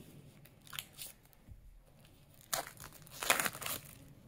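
Clear plastic shrink-wrap on a phone box being slit with a knife and peeled off. A couple of faint ticks come first, then loud crinkling and tearing in bursts from a little past halfway.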